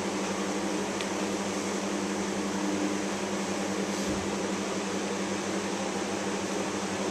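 Steady hum and hiss of ventilation or air conditioning, with a soft low thump about four seconds in.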